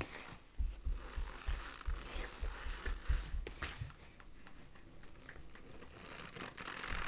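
Dry cornstarch being squeezed and crumbled in the hands, a quick run of crunchy, squeaky crackles for about three seconds, then fainter rustling.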